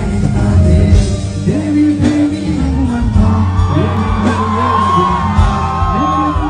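Live music over a concert PA: heavy steady bass under singing, with a held, gliding sung line from about three seconds in, and shouts and whoops from the audience around the recording phone.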